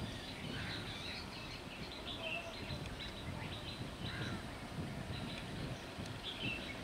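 Birds chirping and calling in short, scattered notes over a steady low background rumble.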